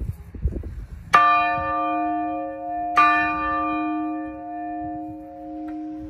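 Old church bell, rocked by its lever arm, struck twice by its clapper about two seconds apart; each stroke rings out with many overtones over a lingering low hum. A few low knocks come before the first stroke.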